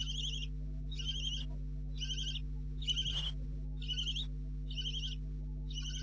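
Barn owlets giving their raspy, hissing begging calls ('snoring'), short calls repeated about once a second. A steady low electrical hum runs underneath.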